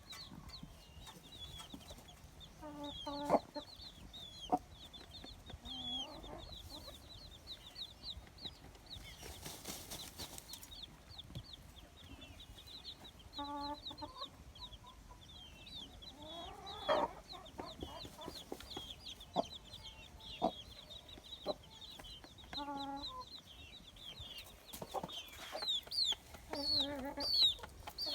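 Domestic chickens: a continuous stream of many short, high, falling peeps, typical of chicks, with a hen giving a few low clucks and one louder call in the middle.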